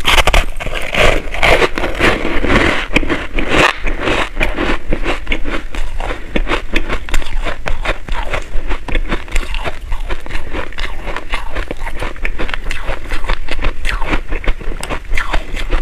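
Close-miked crunching and chewing of a mouthful of packed crushed ice, a dense run of cracks and crackles that is loudest in the first few seconds. A metal spoon scraping and pressing the crushed ice in a plastic tray is mixed in.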